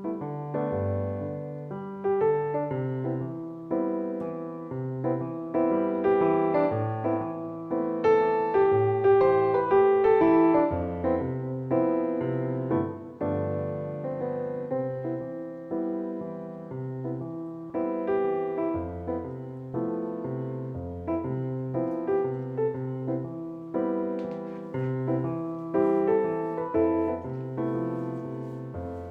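Background piano music, a gentle melody over a bass line that changes about once a second.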